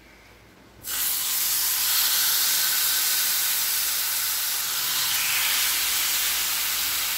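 Marinated chicken sizzling in hot oil in a cast-iron kadai. A steady hiss starts suddenly about a second in, as the first piece goes into the pan, and carries on unbroken.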